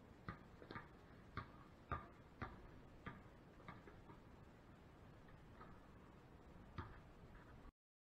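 A basketball being dribbled on a concrete driveway: faint, regular bounces about two a second, growing sparser in the second half, then the sound cuts off abruptly just before the end.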